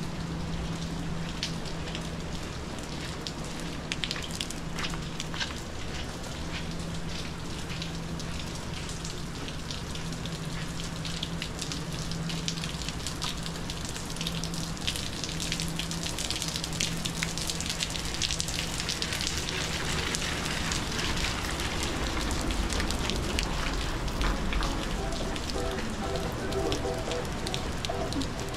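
Steady rain falling on pavement, with many separate drop hits. A low steady hum sits under the first half, and a low rumble swells in the last third.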